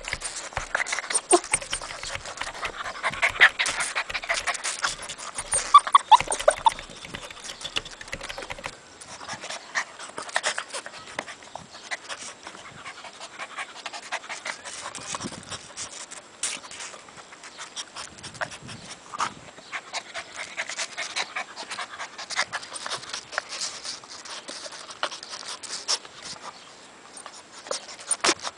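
A puppy panting and snuffling close to the microphone, with a steady run of scratchy clicks and rustles as it noses and paws at the camera.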